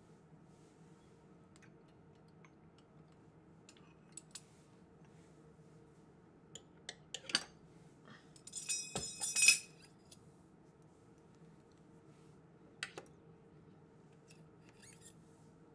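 Scattered sharp metal clicks from a circular sock knitting machine, over a faint steady hum. About nine seconds in comes a brief burst of rapid metallic clinking, the loudest part.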